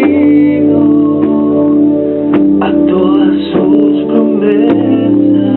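Sustained organ-toned keyboard chords in G accompanying a worship song, with the bass note changing twice.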